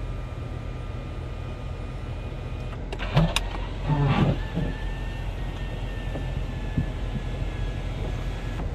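Electric motor of a Toyota Innova Hycross's panoramic sunroof whirring as the glass panel slides open: a steady motor whine whose tone shifts about three seconds in. There are brief louder sounds about three and four seconds in.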